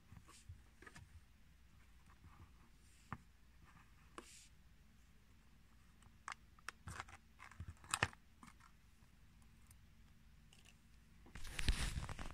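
Foil seal being peeled off a plastic tub by hand: faint scattered crinkles and clicks, with a louder rustle lasting about a second near the end.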